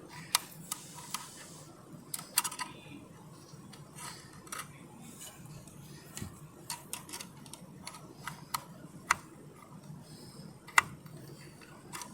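Irregular light clicks and taps of small parts being handled as a satellite antenna's limit-switch mechanism is fitted back in place, with one sharper click near the end.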